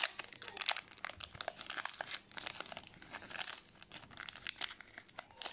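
Foil-lined plastic wrapper of a Magic: The Gathering booster pack crinkling and crackling as it is worked open by hand, a rapid, irregular run of crackles.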